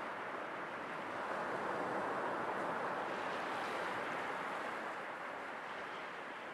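Sea waves washing in: a steady rushing noise that swells a little about a second in and slowly eases off toward the end.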